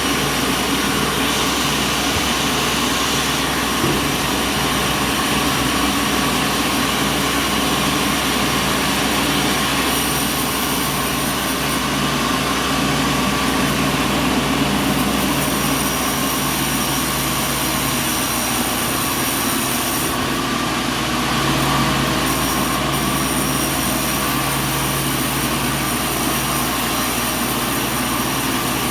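Sawmill machinery running steadily, a continuous mechanical drone with a constant whine over it.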